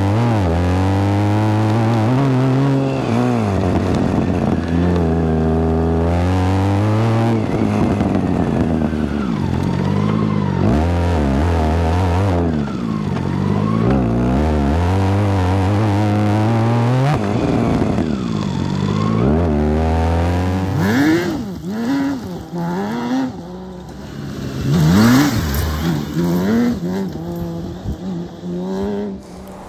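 BMW K1600GT's inline six-cylinder engine revving up and down over and over as the bike is ridden hard off-road, with traction control off and the rear wheel spinning. In the last third the revs come in shorter, quieter bursts.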